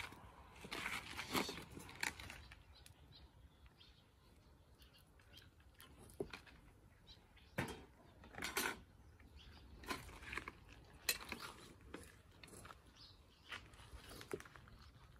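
Scattered light clicks and knocks of bowls and utensils being handled during food preparation, with a few sharper taps spread through.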